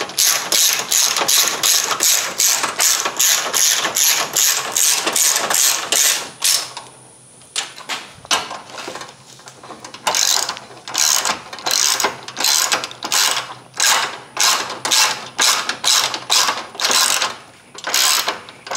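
Hand ratchet wrench clicking in quick strokes, about three a second, as the fender bolts are tightened. It stops for a few seconds about a third of the way through, then starts again.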